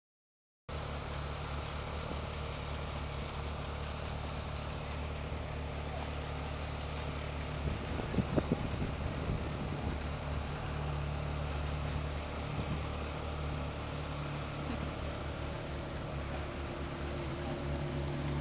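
Ferrari V8 engine idling and running at walking pace with a steady low note, with a few sharp clicks about eight seconds in.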